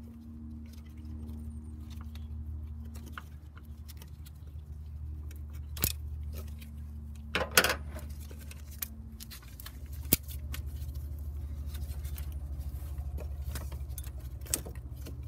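Metal clinks and knocks as an A/C compressor and its aluminium refrigerant lines are handled and worked loose in an engine bay, with a few sharp clacks, the loudest a double one about halfway through. A steady low hum runs underneath.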